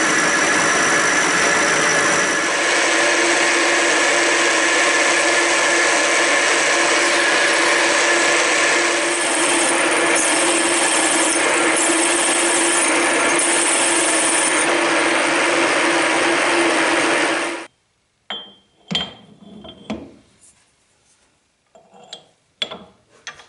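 Vertical milling machine running, its end mill cutting along the edge of a metal side plate: a steady machining noise with a constant underlying tone and an intermittent high hiss in the middle. It cuts off suddenly about three quarters of the way in, followed by a few light knocks and clicks of metal parts being handled.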